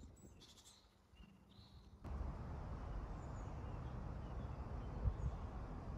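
Quiet outdoor ambience with a few faint, high bird chirps. About two seconds in, a steady low rumbling background noise comes in suddenly.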